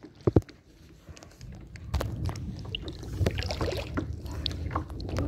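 Handling noise from a handheld phone in a waterproof bag: the bag rubs and gives light knocks, with a sharper knock just after the start, over a low rumble of wind on the microphone.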